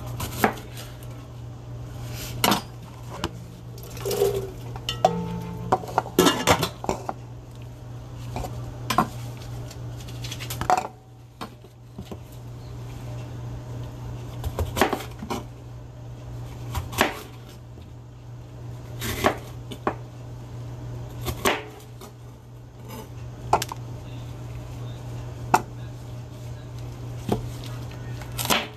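A chef's knife chopping a red bell pepper on a plastic cutting board: irregular sharp knocks of the blade hitting the board every second or two, over a steady low hum.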